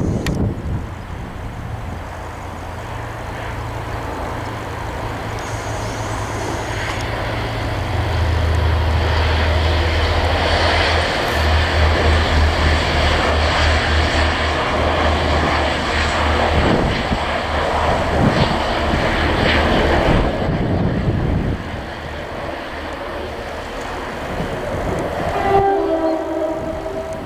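Class 185 Desiro diesel multiple unit passing at speed, its engine rumble and wheel-on-rail noise building to a peak through the middle and dropping away after about twenty seconds. Near the end a train horn sounds briefly.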